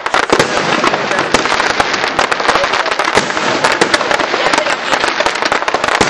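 Aerial fireworks display: a dense, continuous crackle of small pops and bangs, many a second, with no pause.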